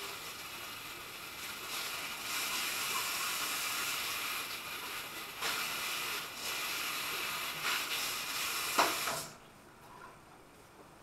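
Diced pork sizzling in a stainless steel frying pan, a steady hiss that cuts off abruptly about nine seconds in, just after a sharp click.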